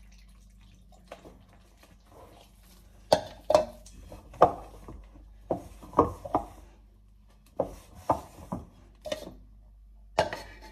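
Hand mixing flour and water into dough in a glass bowl: a run of sharp, irregular knocks and clinks against the glass, about a dozen of them, starting about three seconds in after a quieter stretch.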